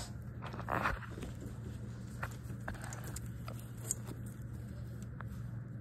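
Small clicks and a short rustle of wires and plastic connectors being handled, over a steady low hum.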